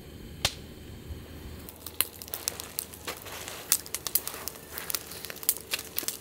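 Firewood burning in a metal brazier, crackling with irregular sharp pops that come much thicker from about two seconds in.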